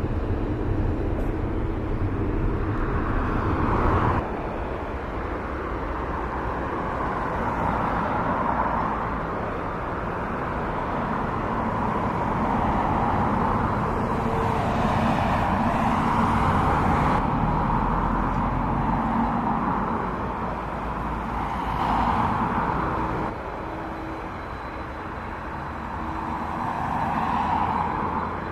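Airbus A320 jet engines running at taxi power: a steady rumble with a hiss that swells and fades. The sound changes abruptly a few times where the recording is cut.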